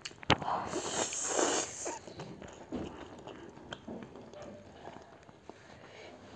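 A person slurping and chewing spicy instant noodles, with a sharp click near the start and the loudest slurping in the first two seconds, then quieter chewing.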